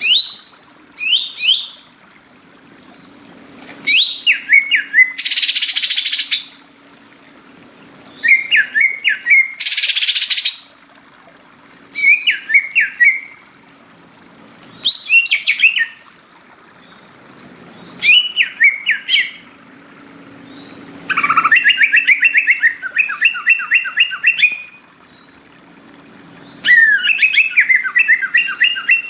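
A green leafbird (cucak ijo) singing in repeated bursts of rapid, sweeping whistled notes, a phrase every couple of seconds. Twice, about five and ten seconds in, there is a short harsh hissing burst. A faint low hum runs underneath.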